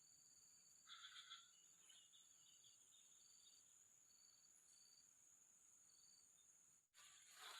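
Faint outdoor insect drone: a steady high buzz with short chirps repeating every half second or so, and a brief louder burst of chirping about a second in.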